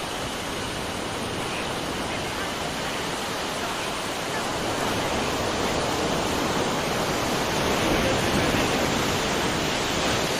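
Steady rushing noise with no distinct events, a little louder from about halfway through.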